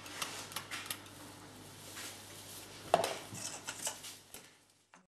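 Metal ice-cream scoop clicking and scraping as ice cream is scooped out and released into a paper tub, with one sharper knock about three seconds in.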